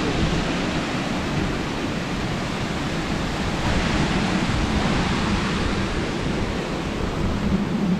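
Wind buffeting the camera microphone: a steady rushing hiss over an uneven, rumbling low end that rises and falls.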